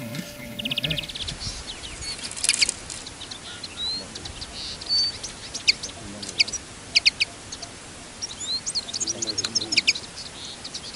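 Small songbirds calling with short, high chirps, scattered irregularly, with a couple of brief whistled notes.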